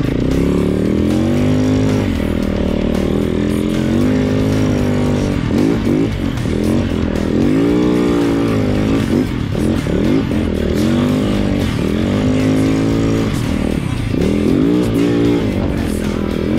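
Snow bike engine (a dirt bike fitted with a Timbersled Riot track kit) revving up and down over and over as it rides through deep powder, the pitch rising and falling every second or two. Music plays underneath.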